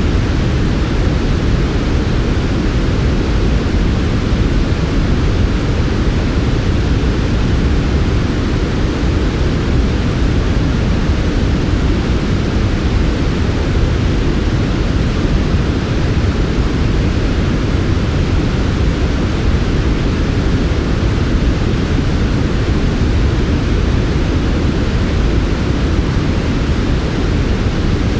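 Generated sleep noise: a smooth, steady hiss that never changes, heavier and deeper in the low range than true white noise, with a softer wash above.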